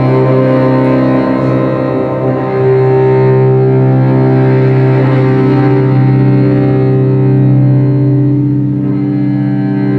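Cello bowed over a steady, held drone from a keyboard synthesizer.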